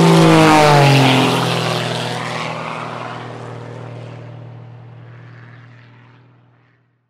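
Propeller airplane flying past, loud at first, its engine note dropping in pitch as it passes about a second in, then fading steadily away.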